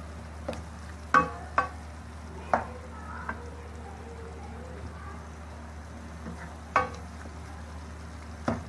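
Spatula stirring a thick, sizzling ridge-gourd and tomato masala in a nonstick wok, with several sharp knocks of the spatula against the pan. A steady low hum runs underneath.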